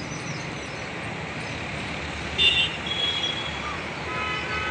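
Road traffic running steadily, with a short, sharp vehicle horn toot about halfway through and another longer horn sounding near the end.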